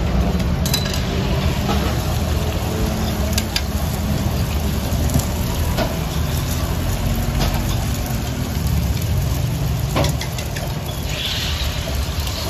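Breakfast-shop kitchen at work making scallion egg pancakes: a steady low rumble of kitchen equipment, with scattered clicks and clatter of utensils and a brief hiss near the end.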